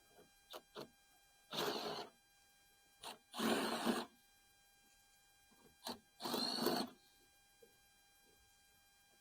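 Electric drill run in three short bursts of about half a second each, enlarging the bolt holes in a sandblasting cabinet's sheet-metal door.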